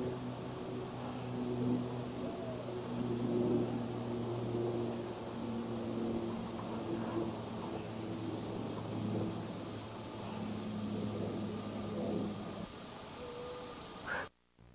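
Steady high insect trill over a low hum and hiss on an old camcorder tape recording. All of it cuts off suddenly near the end.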